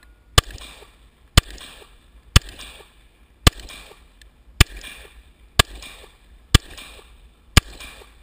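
Glock pistol firing eight shots in steady succession, about one a second, each sharp report followed by a short echo.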